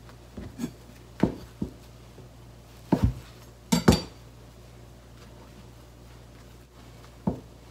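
A kitchen knife knocking against a plastic cutting board as deep-fried tofu is cut into triangles and handled: a handful of short, irregular knocks, the loudest about three and four seconds in.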